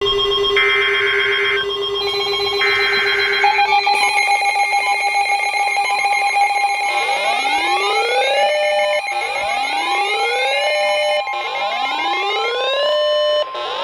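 Emergency Alert System signals from NOAA weather radio overlapping: SAME header data bursts of about a second each, steady alert tones stacking up, and from about halfway on a rising siren-like wail that repeats roughly every two seconds. Together they announce a new severe thunderstorm warning.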